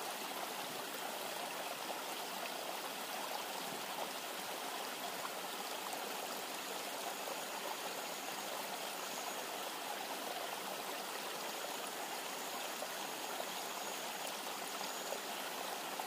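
A river flowing, a steady, even rush of water.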